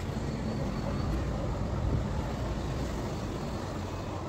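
Steady low rumbling background noise with no distinct events in it.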